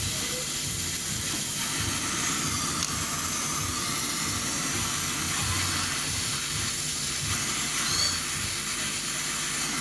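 Steady hiss of gas with a low rumble underneath.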